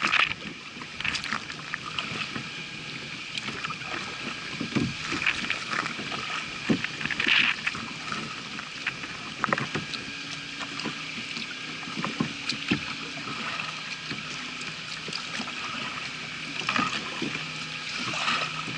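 Kayak paddling through floodwater: the paddle dips and splashes now and then, and water washes along the plastic hull.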